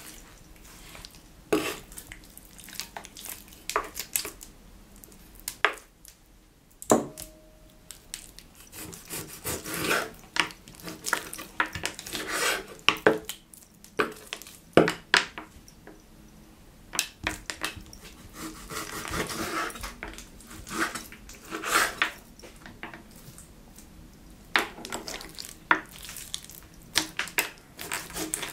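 Kitchen knife slicing raw pork neck on a wooden cutting board: rasping sawing strokes through the meat, broken by irregular sharp knocks as the blade meets the board.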